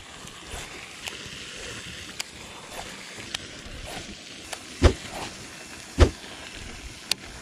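Steady outdoor background with light wind on the microphone, scattered small clicks, and two dull thumps about five and six seconds in.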